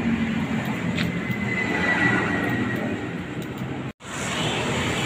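Street noise with a motor vehicle engine running nearby, a steady low hum. A faint whistle-like tone drifts slightly down about two seconds in, and the sound drops out for an instant near the end.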